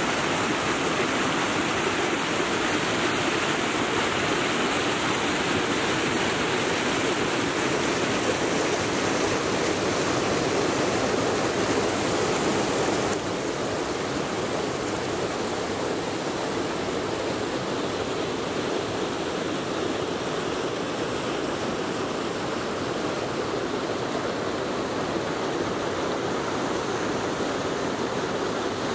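Multnomah Creek rushing and splashing white over rocks, a steady, dense rush of water. About thirteen seconds in it drops a little in level and becomes slightly duller.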